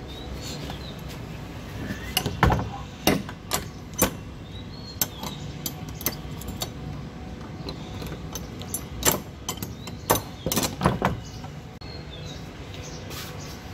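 A metal barrel bolt and padlock on a wooden door being worked: a string of sharp metallic clacks and clicks as the bolt is slid across and the padlock is snapped shut, in a cluster about two to four seconds in and another about nine to eleven seconds in.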